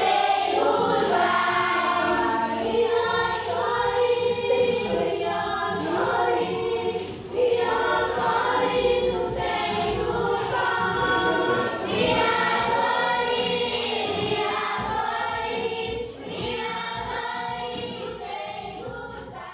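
A choir of voices singing together, fading out gradually near the end.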